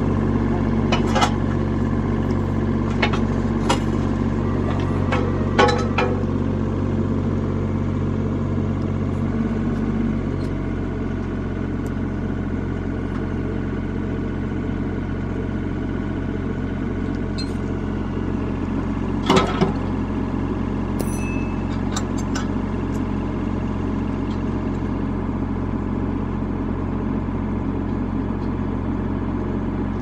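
Wacker Neuson 38Z3 mini excavator's diesel engine running steadily, its note changing about ten seconds in as the bucket is worked. A few sharp clanks come through it, the loudest about twenty seconds in.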